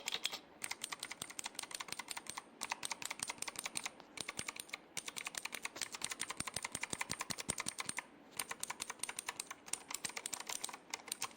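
Rapid typing on a Cosmic Byte Artemis mechanical keyboard with ABS plastic keycaps: a dense run of key clicks, broken by a few short pauses.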